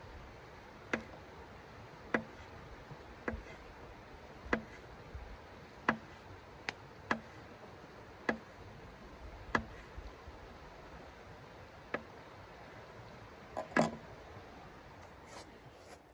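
Folding knife slicing a sausage into rounds on a hard tabletop, the blade tapping the table sharply with each cut, about once a second and unevenly spaced, a dozen or so taps.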